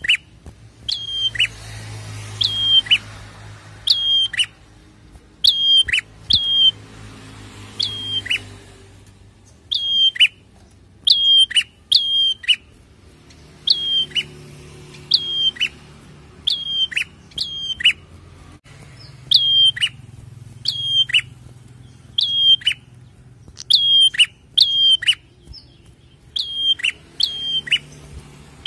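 A caged prenjak (prinia) singing: sharp, high chirps that sweep down in pitch, given in quick pairs and threes and repeated about every second or two.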